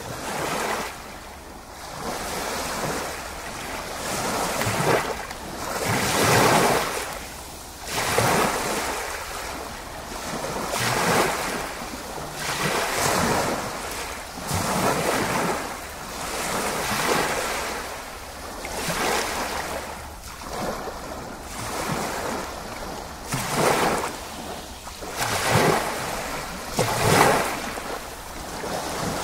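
Ocean surf: waves wash in and draw back over and over, about one swell every two seconds.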